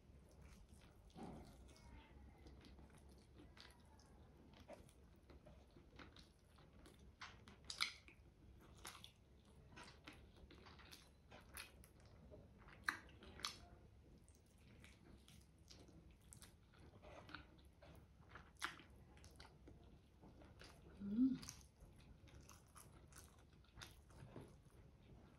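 Close-miked eating of a chicken adobo drumstick: soft, wet chewing and biting with irregular mouth clicks and smacks. One short, louder low sound comes about three quarters of the way through.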